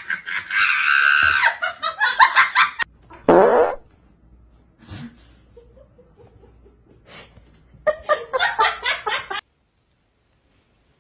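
People laughing in quick bursts, broken by a short raspy sound that falls in pitch about three seconds in; the laughter comes back near the end and then cuts off abruptly to silence.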